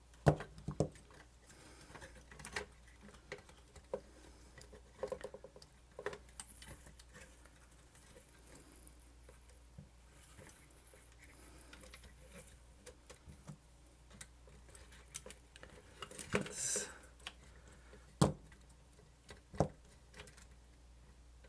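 Scattered small clicks, taps and rustles of hands fiddling wires and small parts into a camcorder's cramped casing, with a longer scraping rustle about sixteen seconds in. A faint low hum runs underneath.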